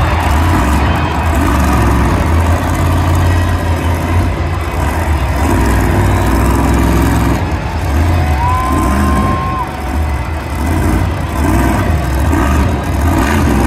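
El Toro Loco monster truck's supercharged engine running loudly and steadily under throttle while the truck balances on two wheels. A brief steady high tone sounds about two-thirds of the way through.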